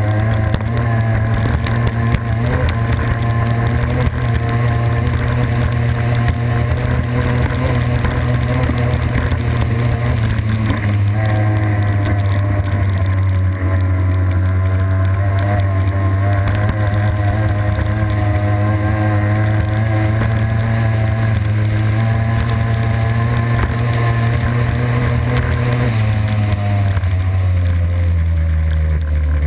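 Racing boat engine running hard at speed, heard onboard over the rush of water and spray. The pitch holds steady for most of the time, then drops in a step over the last few seconds as the boat slows.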